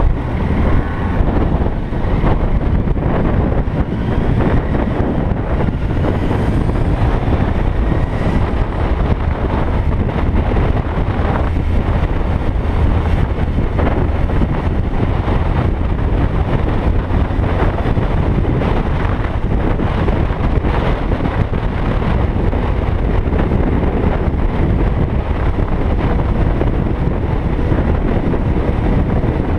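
Heavy wind buffeting the microphone over the running engine of a Suzuki Bandit motorcycle riding along at speed.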